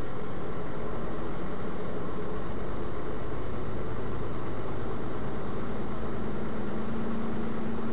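Vehicle engine running steadily with road noise while driving slowly, heard from inside the cab through a dash camera. A low hum grows stronger in the second half.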